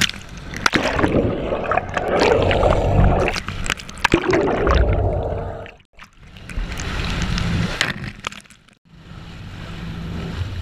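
Waves and spray splashing and gurgling against the boat's side and over the camera, with many small clicks of drops hitting it. The sound drops out briefly about halfway through and again near the end.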